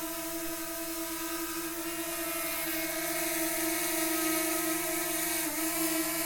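DJI Mavic Mini 2 drone's propellers whining steadily in flight, one even pitched hum with a hiss above it. The pitch dips slightly and then rises briefly near the end as the motors adjust speed.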